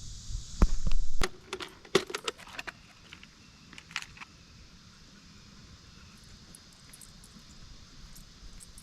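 Light metallic clinks and knocks of small gear being handled close to the microphone, with a low rumble of handling in the first second. A last click comes at about four seconds, then only faint steady background hiss.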